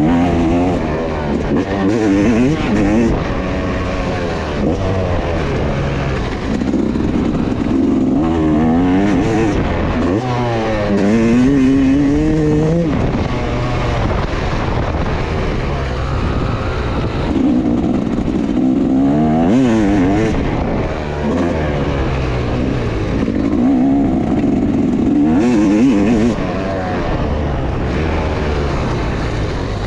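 Motocross bike engine heard from a camera mounted on the bike, revving hard and backing off over and over, its pitch rising and falling with each burst of throttle and gear change.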